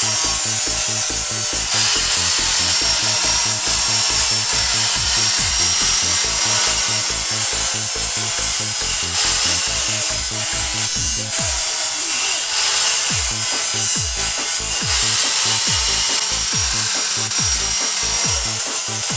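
Electric angle grinder with a sanding disc running and sanding plywood, a steady high hiss, under background music with a steady beat.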